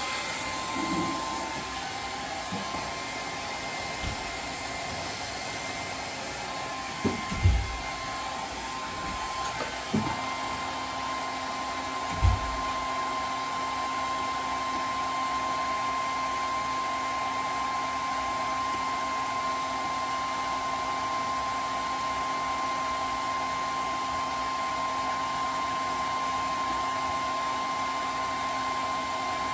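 Heat gun blowing steadily with a constant whine, with a few knocks in the first half.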